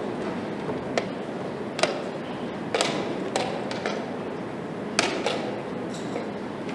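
Wooden chess pieces set down on a DGT board and chess clock buttons pressed during blitz play: about six sharp clicks and knocks, over a steady background hiss.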